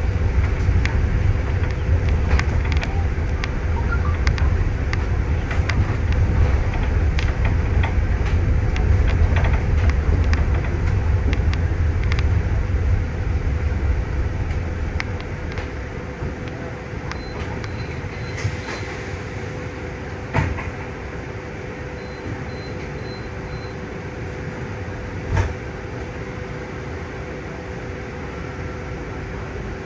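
Transmac city bus interior on the move: steady engine and road rumble under a constant hum. The rumble eases about halfway through as the bus slows, and two sharp knocks come in the second half.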